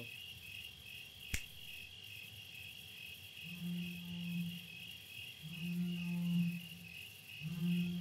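Crickets chirping steadily in a fast, even pulsing trill. There is a sharp click a little over a second in, and from about halfway three low held tones of about a second each.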